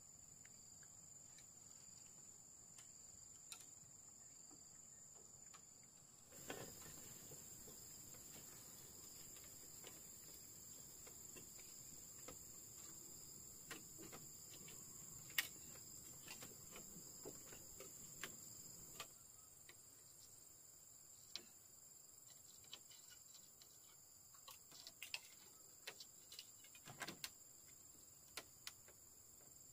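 Faint steady high-pitched insect chorus, with scattered light clicks and knocks. A soft rustling sets in with a knock about six seconds in and stops about nineteen seconds in.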